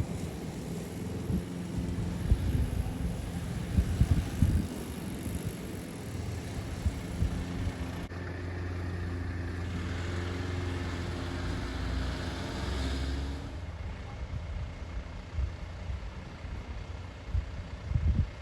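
Fire engine's motor running as the vehicle drives, a steady low engine drone with irregular knocks and bumps in the first few seconds. Around the middle the drone settles into a steadier low hum that fades a few seconds later.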